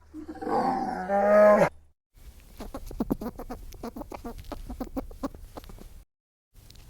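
A cow mooing in two short calls, the second rising in pitch, followed by a few seconds of quick irregular clicks.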